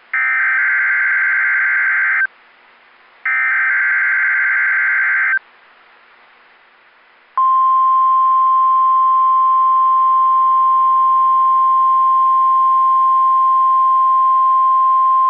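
NOAA Weather Radio SAME digital header: two loud, warbling data bursts of about two seconds each. About seven seconds in, the steady 1050 Hz weather radio warning alarm tone starts and holds.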